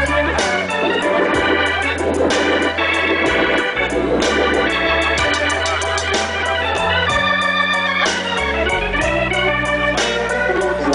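Live band playing an instrumental break, with sustained organ chords over bass and drums.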